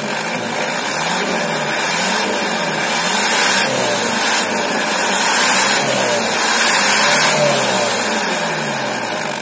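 Vehicle engine revved up and down several times through a homemade stainless-steel 'suos' exhaust tip, the pitch rising and falling with each blip and a rushing hiss swelling with the revs.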